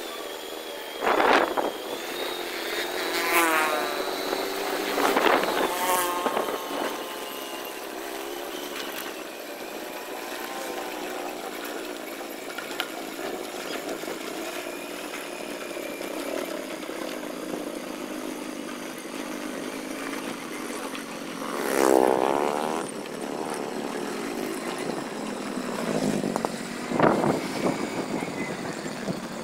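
Motorcycle engine running while riding on a rough road, its pitch drifting slowly up and down. A few louder swells of engine noise come about a second in, between three and six seconds in, and again near the end.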